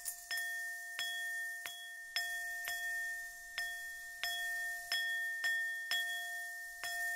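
A small metal bowl struck repeatedly with a mallet, about two strokes a second, each a bright ring that hangs on, so the same few pitches sound steadily under the taps.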